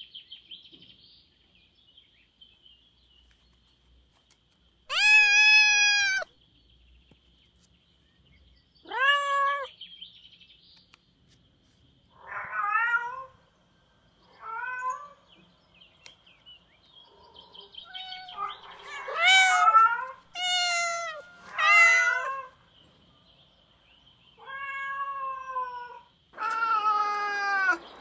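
Domestic cats meowing, about nine separate meows spaced a second or more apart, some short and some drawn out, over a faint, steady high chirping.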